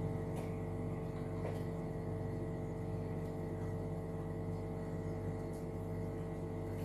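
Steady motor hum holding several even tones, with a few faint pops from the thick coconut rice pudding boiling on high heat.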